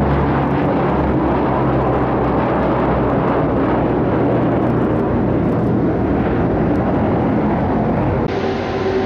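Lockheed C-130 Hercules's four turboprop engines running loud and steady, a drone with several held low tones. Near the end it cuts abruptly to the steady hum of an Airbus KC-30M tanker's jet engines, with a single held tone.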